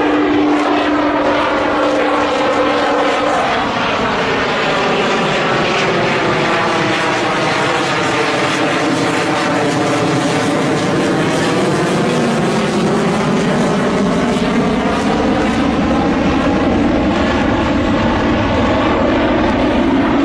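Loud, steady jet noise of a fighter jet flying past, with a sweeping swish in pitch that slows near the middle and sweeps back the other way afterwards. A low steady hum drops away about three seconds in.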